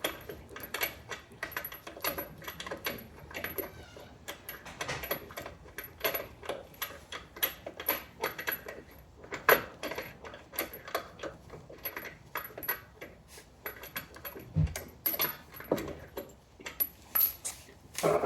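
Irregular light metallic clinks and rattles of lug nuts and hand tools being handled as a wheel is fitted back on a car, with one dull thump about three-quarters of the way through.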